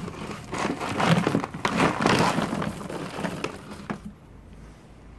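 Large plastic bag of dry cat food rustling and crinkling as it is carried and handled, a dense crackle of small clicks that stops about four seconds in.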